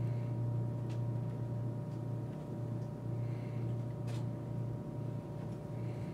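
A steady low hum with faint steady higher tones over it, and two faint clicks, about a second in and about four seconds in.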